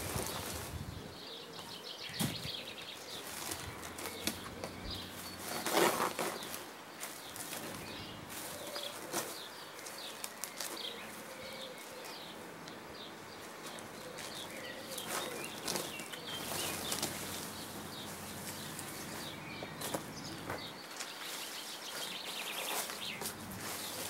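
Green fabric sheeting rustling and flapping as it is dragged and pulled up from the ground by hand, with weeds tearing and small scattered clicks. Small birds chirp in the background.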